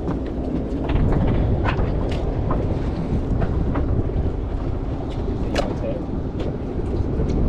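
Steady low rumble of wind buffeting the microphone on a boat, with scattered knocks and clicks as a halibut is handled and laid on a measuring board.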